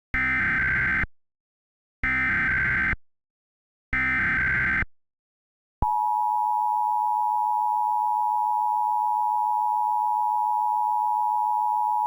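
Emergency Alert System SAME header: three one-second bursts of digital data tones, about a second apart, encoding a Required Monthly Test. About six seconds in, the EAS attention signal begins: a steady, loud two-tone sound that is still going at the end.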